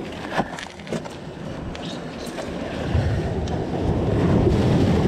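Sea water surging and washing over barnacled jetty rocks, with wind buffeting the microphone. A few light knocks and rustles in the first second, then a low rushing that swells louder about three seconds in.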